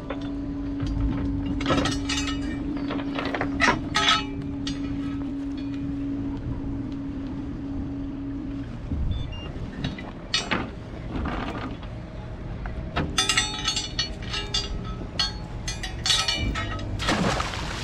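Metal boat-anchor chain clinking and rattling against a fiberglass boat as the anchor is handled and thrown overboard, with scattered sharp clinks and a burst of noise near the end. A steady hum runs under it and stops about nine seconds in, over a low rumble of wind on the microphone.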